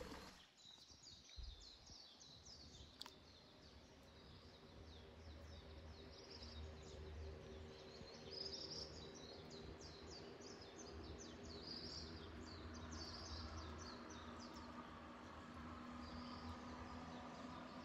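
Faint outdoor ambience: many quick, high bird chirps repeating, over a low steady hum.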